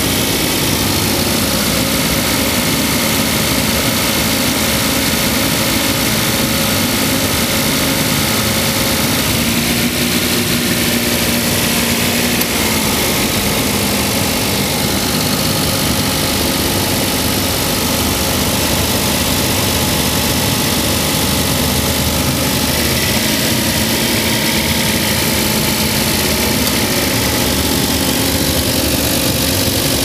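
Toyota Tank's 1.0-litre three-cylinder engine idling steadily with the air conditioning on while the system is charged with R134a refrigerant.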